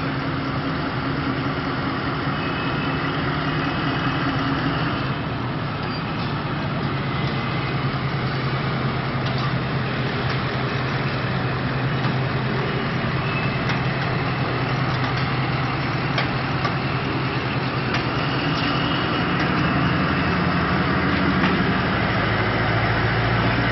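Diesel locomotive engine running with a steady low drone as a passenger train moves slowly past, with a few sharp clicks scattered through.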